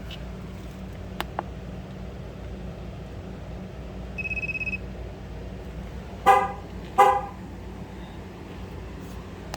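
A handheld TPMS tool gives a short rapid-pulsed beep, then the 2008 Chevrolet Tahoe's horn chirps twice, about two-thirds of a second apart: the signal that the driver-rear tire pressure sensor, the last one, has been learned and the relearn is complete.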